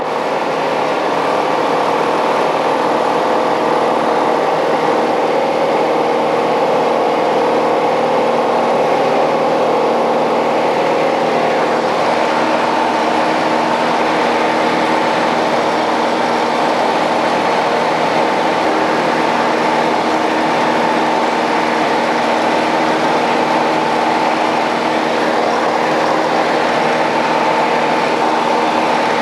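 Single piston engine and propeller of a Piper Cherokee Six, a six-cylinder Lycoming, running steadily in flight, heard inside the cabin. Its tone shifts slightly about twelve seconds in.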